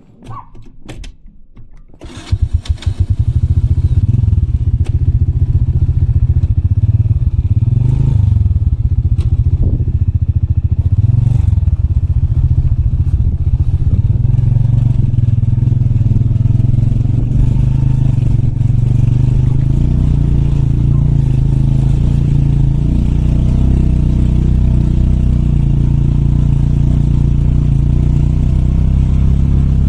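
Motorbike engine catching about two seconds in after a few clicks, then running steadily, with the revs rising and falling briefly a few seconds later.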